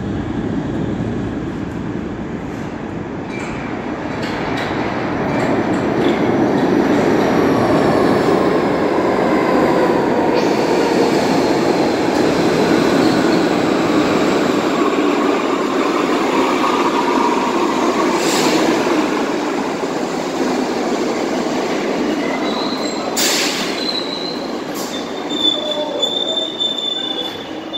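New York City Subway 6 train pulling into an underground station, its steel wheels rumbling along the rails as it slows. Faint metallic wheel and brake squeal runs through it. A steady high brake squeal and a short sharp hiss of air come near the end as it comes to a stop.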